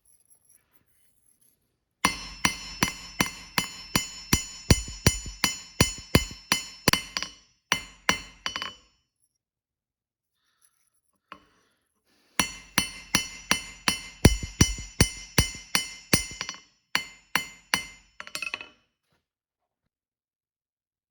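Hammer striking metal on an anvil, each blow ringing, about three blows a second, in two runs of about six seconds with a pause between.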